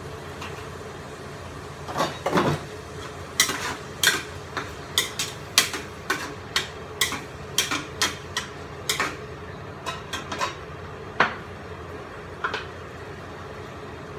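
A stirring utensil clinking and scraping against a cooking pot as the pot's contents are stirred: irregular knocks about two a second that stop shortly before the end, over a steady low hum.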